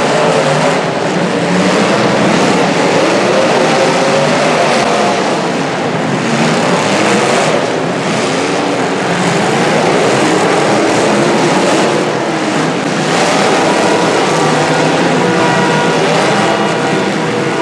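Several demolition derby cars' engines revving hard together, a loud, dense mix of engine noise. Near the end, a steady pitched drone joins in.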